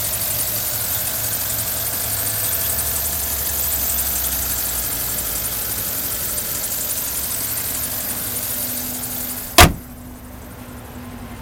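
2013 Cadillac Escalade's 6.2-litre V8 idling steadily, heard at the open engine compartment. Near the end a single loud thump sounds, after which the engine is much quieter.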